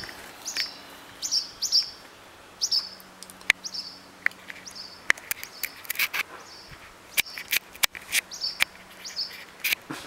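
Barn swallow alarm calls: short, high chirps repeated every half second or so, some in quick pairs, as the swallows warn off a cat. A few sharp clicks sound between the calls.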